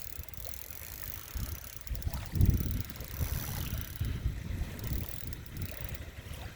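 Wind buffeting the microphone in uneven low rumbling gusts, the strongest about two and a half seconds in.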